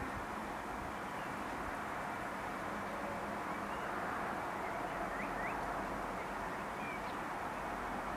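Outdoor ambience: a steady rushing hiss, with small birds giving short, scattered chirps a few times.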